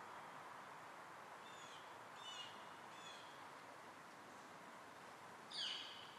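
Bird calls over a faint, steady background hum: three short chirps about two seconds in, then a louder call sweeping downward in pitch near the end.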